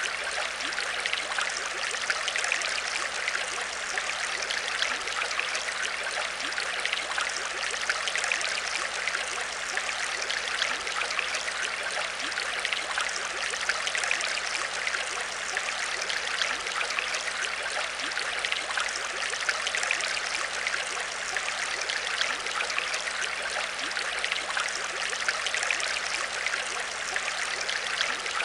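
Aquarium water trickling and bubbling steadily, with a dense crackle of small splashes and a faint steady hum underneath.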